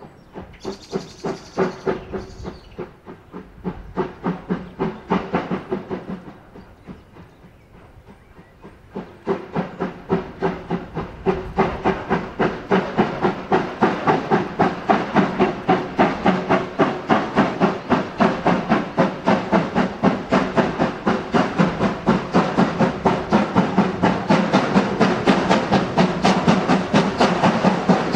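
Train running with a regular, rhythmic beat over a steady hum, with a short hiss about a second in. The beat fades away for a few seconds, then comes back louder and quicker and keeps going.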